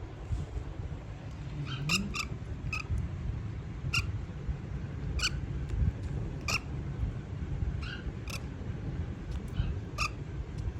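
Small pet parrot giving short, sharp chirps, about a dozen spread unevenly, over a low background rumble.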